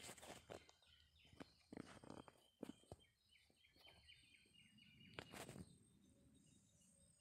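Faint rustling and scratchy clicks of grass and leaves brushing as the phone moves through weeds, with a small bird chirping a quick run of short high notes in the first few seconds.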